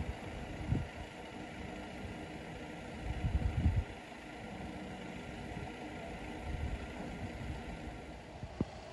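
A vehicle engine idling steadily, with gusts of wind buffeting the microphone, the strongest about three to four seconds in.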